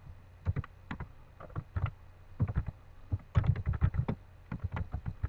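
Typing on a computer keyboard: an irregular run of keystroke clicks, bunching into quicker flurries in places.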